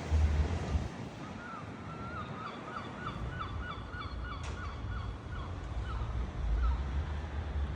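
A garden bird calling a quick run of about fifteen short, repeated notes, roughly three a second, thinning out towards the end. Wind rumbles on the microphone at the start and again near the end.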